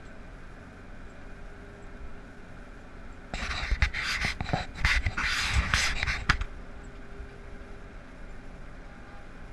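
Steady drone of a self-propelled windrower heard from inside its cab while cutting alfalfa. A loud rustling, crackling noise about three seconds long covers it in the middle.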